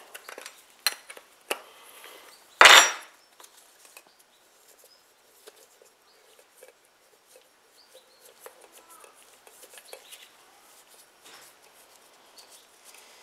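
Light metal clinks and handling noises of hand tools working on a Briggs & Stratton lawnmower carburetor, with one short, loud burst about two and a half seconds in.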